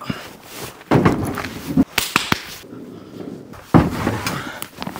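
A run of sharp clicks and knocks, then a heavy thud a little before the end: a vehicle door being worked and slammed shut.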